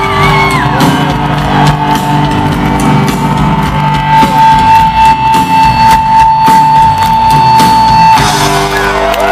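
Rock band playing live over a stadium PA, with guitars and drum kit. A long held high note runs from about four seconds in until about eight seconds, when the music changes.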